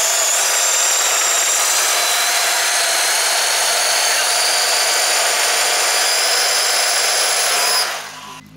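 Electric Arrma Outcast RC truck's motor and drivetrain whirring steadily at close range, a drill-like whine with a few steady high tones. It fades away near the end as the truck drives off.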